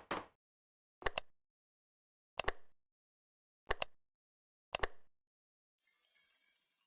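Cartoon sound effects: four short, pitched double pops about a second apart, then a high sparkling shimmer that starts near the end.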